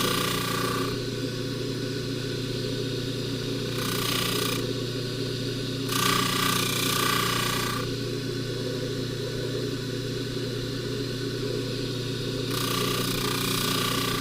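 Jewelry polishing buffer motor running with a steady hum, and a hiss from the spinning wheel each time a silver box chain is pressed against it: at the start, briefly about four seconds in, longer around six to eight seconds, and again near the end.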